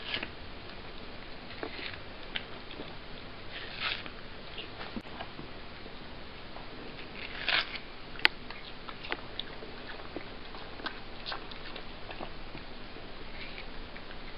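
A domestic cat biting and chewing juicy watermelon flesh: irregular wet smacks and small clicks, with a few louder bites about four and seven and a half seconds in and one sharp click just after.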